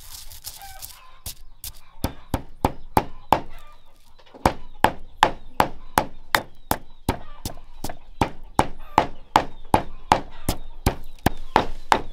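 Stone pestle pounding in a stone mortar, sharp strikes at about three to four a second. They start about a second in, pause briefly near the four-second mark, then come back louder.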